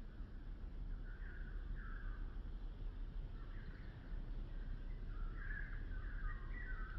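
Birds calling outdoors in a forest: a series of short calls, more of them in the second half, over a steady low rumble.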